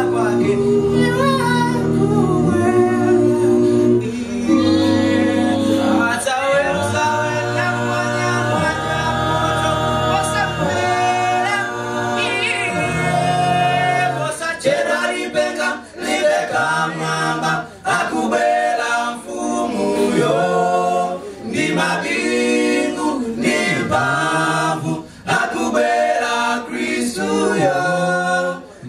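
Male a cappella group singing a gospel song in close harmony over a deep bass line. The chords are held long at first, then about halfway through break into short, rhythmic chords with brief gaps between them.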